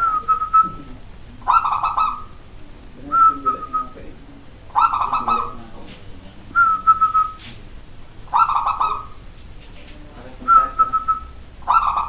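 Caged zebra dove (perkutut) singing its cooing song: short whistled phrases repeated about every one and a half to two seconds, a fuller phrase alternating with a thinner one.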